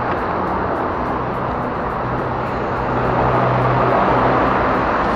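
Wind rush and road noise of a bicycle riding in city traffic, with the low steady hum of a motor vehicle's engine growing stronger from about two to four seconds in.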